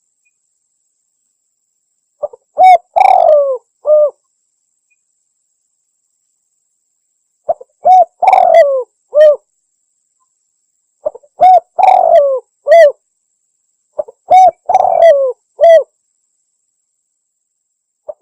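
Spotted dove cooing: four phrases a few seconds apart, each a couple of short notes, a louder, longer coo that falls in pitch, and a short closing note, with silence between phrases. This is the call played as a lure to draw wild spotted doves for hunting.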